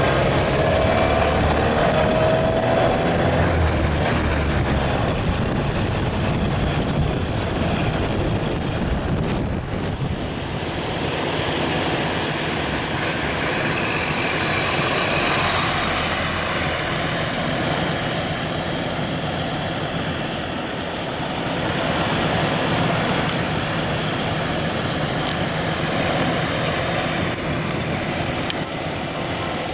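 1929 Ford Model A pickup's four-cylinder engine running as the truck is driven, with a rising whine in the first few seconds as it accelerates. It swells slightly about halfway through as the truck passes, and a few short clicks come near the end.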